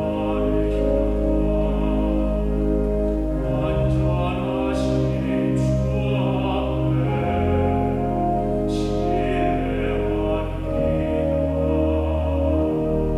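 A singer performing a slow sacred song over long held accompaniment chords with a sustained bass line.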